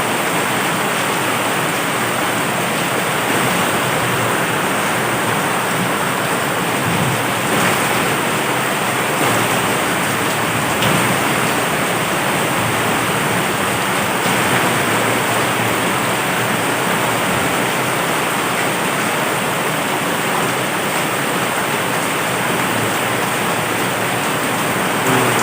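Heavy rain falling steadily, a dense, even hiss with no break.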